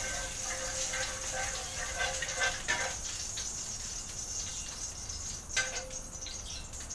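Cooking oil heating in a wok on a gas stove: a steady hiss, while a metal ladle scrapes the pan and knocks against it twice.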